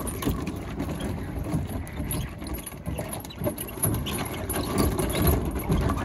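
Wind rumbling on the microphone, with scattered knocks of footsteps on the wooden log rungs of a playground chain bridge.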